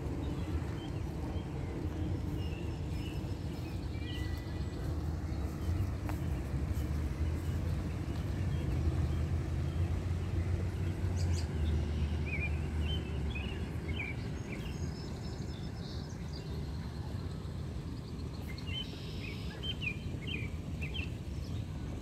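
Outdoor ambience: a steady low rumble with short bird chirps in two clusters, about halfway through and again near the end.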